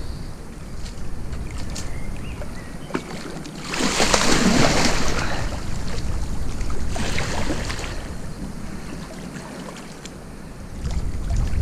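A hooked wels catfish thrashing and splashing at the surface at the rod tip. The loudest splashing comes about four seconds in and a shorter burst about three seconds later, with wind rumbling on the microphone.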